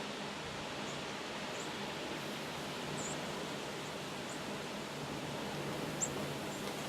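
Steady wind and rain noise heard from inside a hunting shanty, with short high chirps every second or so; the loudest chirp comes about six seconds in.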